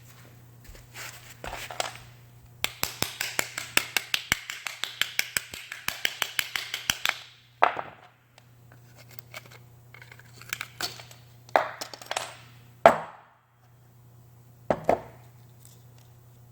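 Workshop handling of hard parts: a fast clicking rasp, about eight clicks a second, lasts roughly four seconds, then several sharp metallic clanks with a short ring, the loudest near the end. A steady low hum runs underneath.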